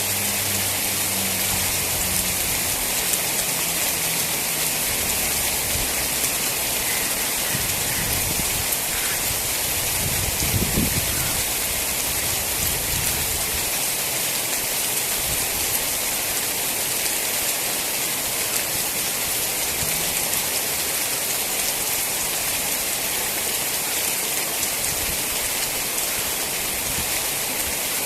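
Steady rain falling, an even hiss of many drops, with a brief low rumble about ten seconds in.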